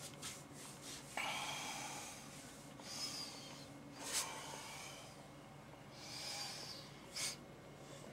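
A person breathing and sniffing close to the microphone in the cold: several short, sharp sniffs and one longer breath, over a faint steady hum.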